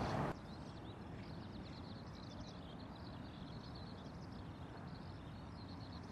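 Eurasian skylark singing: a long, unbroken stream of very rapid, high chirps and trills. Faint low wind or river noise lies beneath, and a louder burst of wind noise cuts off a moment in.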